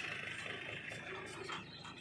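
Powertrac 434 DS Plus diesel tractor engine running as it pulls a loaded trolley away, fading steadily as it gets farther off.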